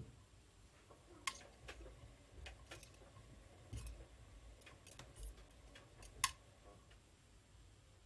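AEG Lavamat L6FB67490 front-loading washing machine slowly tumbling wet laundry in its drum during the wash: a faint low rumble with soft thuds as the load drops, and irregular light clicks, the sharpest a little over a second in and at about six seconds.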